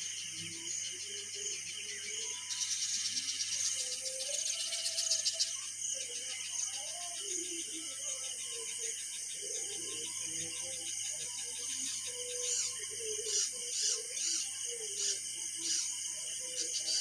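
Birds chirping in short repeated calls over a steady high-pitched insect drone, with faint low wavering sounds underneath.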